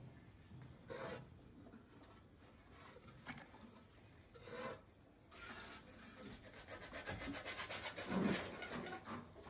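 Rope rasping over the edge of a stone parapet as a bucket is hauled up hand over hand: scattered scrapes at first, then quick repeated rasping strokes that grow louder through the second half.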